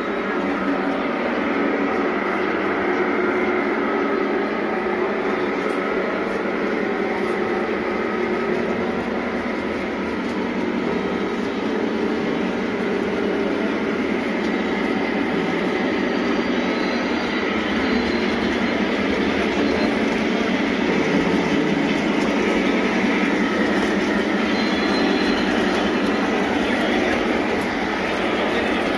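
Model trains running on the layout's track, a steady, continuous rolling noise of motors and wheels with no let-up.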